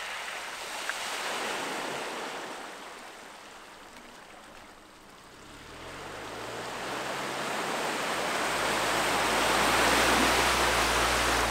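A vehicle driving by: a rush of tyre and road noise swells, fades away about halfway through, then grows steadily louder as a vehicle comes closer, with a low engine hum rising under it.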